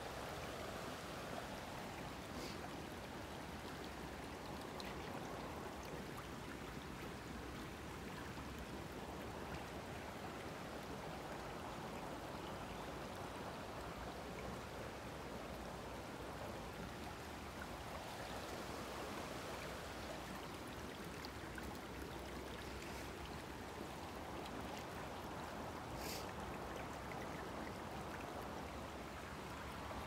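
Shallow stream trickling over pebbles, a steady even rush of water.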